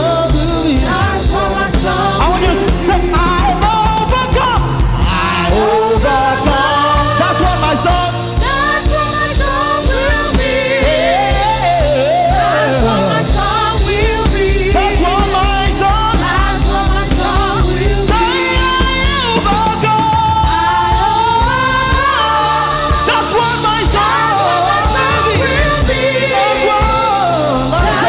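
Live gospel worship music: several singers over a band, with drums keeping a steady beat.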